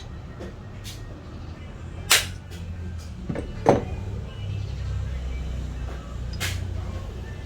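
Several sharp knocks and clicks of hard objects being handled, the loudest about two seconds in and just before the middle, over a low steady hum.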